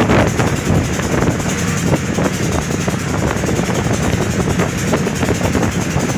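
Motorboat engine running steadily as the boat travels along the river, with water and wind noise mixed in.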